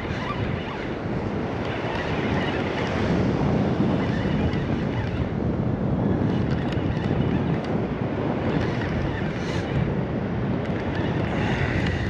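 Wind buffeting the microphone over the steady wash of surf breaking on the beach.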